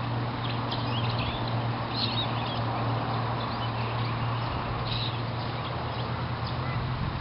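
Outdoor ambience: small birds chirping in short scattered calls over a steady low hum and a wash of wind noise.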